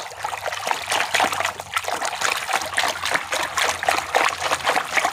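Water splashing and sloshing irregularly as a hand swirls and scrubs a plastic toy animal in a basin of soapy water.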